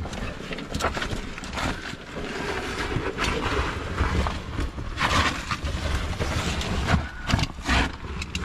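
Scraping, rustling and knocking of cavers crawling through a tight rock passage: oversuits and gear rubbing and bumping on the stone, over a low rumble from the camera being handled at close quarters. The knocks come irregularly, several a second at times, with a stronger scrape about five seconds in.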